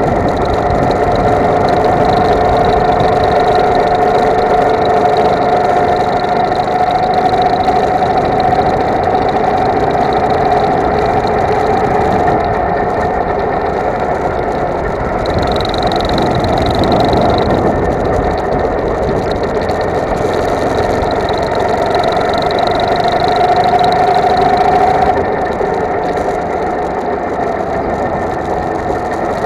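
Go-kart engine heard from on board the kart while lapping, its note rising and falling with speed. The engine note drops off near the end.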